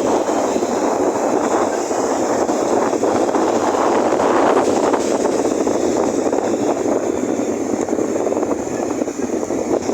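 Strong wind blowing on the microphone together with waves breaking on a beach: a loud, steady rush of noise that swells a little around the middle.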